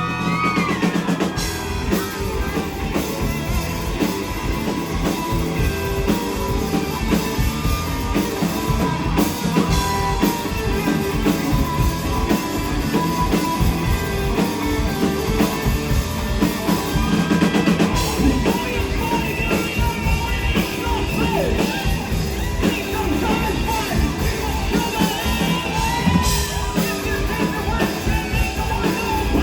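Indie rock band playing live at full volume, with drum kit and electric guitar.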